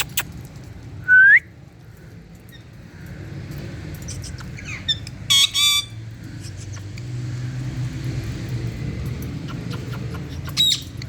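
Female Indian ringneck parakeet calling: a loud rising whistle about a second in, a pair of harsh pitched squawks around the middle, and another short call near the end, over a steady low rumble.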